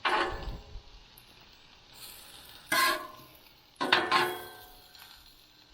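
Sharp metallic clanks, three of them: one at the start, one a little before halfway and one just after. Each rings briefly and fades, like a metal spatula striking the steel top of a flat-top griddle.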